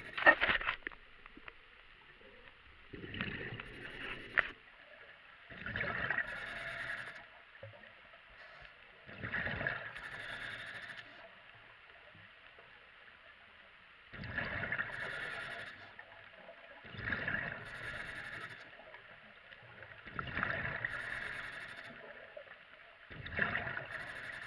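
A diver's breathing underwater: a gurgling rush of exhaled bubbles from the breathing apparatus every three to four seconds, about seven breaths in all, with quiet between.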